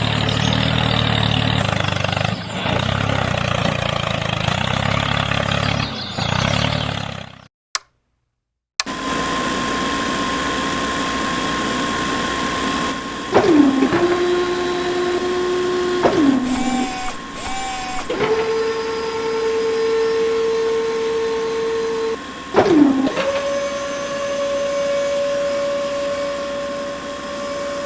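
Small electric motor whirring, its whine dropping and settling at several different pitches as the load on it changes, with a brief silent break in the sound.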